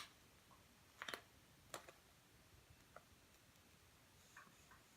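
Faint clicks of small plastic toy parts as a cover is pressed onto a little toy container: four short clicks spread over about three seconds, otherwise near silence.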